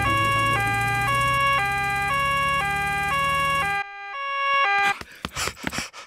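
Cartoon two-tone 'nee-naw' siren of a doctor's little ambulance car, switching between a high and a low note about every half second over a low engine hum. The hum drops out near four seconds and the siren stops about a second later.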